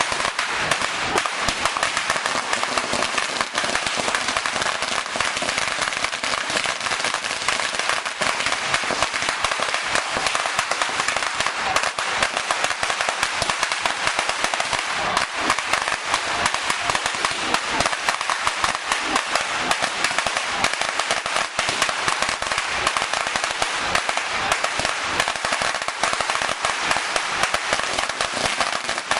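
A string of 5,000 firecrackers burning through in one continuous, rapid crackle of countless small bangs, without a break.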